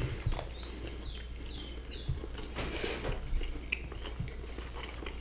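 Close-miked chewing of meat and fries, with soft wet mouth smacks and clicks. Three short, high chirps come between one and two seconds in.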